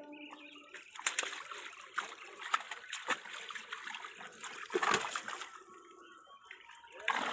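Water splashing and sloshing as a hand-hauled net full of live fish is worked and lifted in shallow water, with irregular sharp splashes, the loudest about five seconds in.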